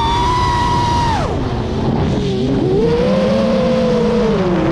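FPV quadcopter's brushless motors whining, the pitch tracking the throttle: a high steady whine that drops sharply about a second in as the throttle is cut, then climbs back and wavers up and down.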